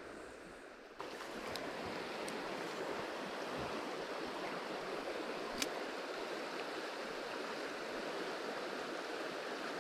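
Shallow river flowing over gravel: a steady rush of running water that gets louder about a second in and then holds even. One short sharp click about halfway through.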